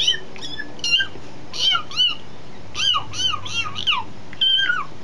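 Bird-like chirping: short calls that rise and fall in pitch, coming in quick groups of two to five, with a longer held call near the end that drops at its close.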